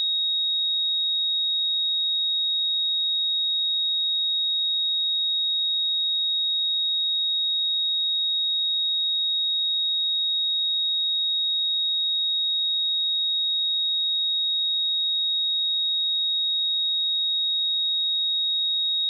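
A pure 3767 Hz sine-wave test tone, one steady high-pitched note held at constant loudness.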